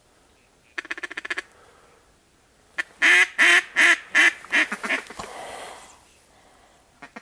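Mallard duck call blown to ducks circling overhead: a quick chuckle of rapid notes about a second in, then a loud descending series of about eight quacks that grow shorter and quicker, ending about five seconds in.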